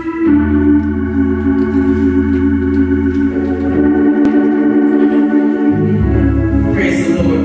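Organ playing held chords over a low bass note, the chords changing a few times. A short hissing sound comes near the end.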